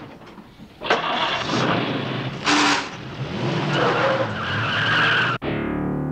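Jeep CJ's engine revving and its tyres squealing as it takes off hard, laying rubber. Near the end it cuts off suddenly and a falling pitched tone follows.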